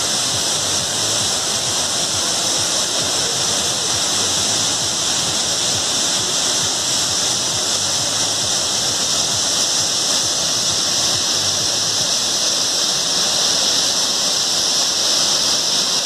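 Tall waterfall plunging into its pool: a steady, unbroken rush of falling water.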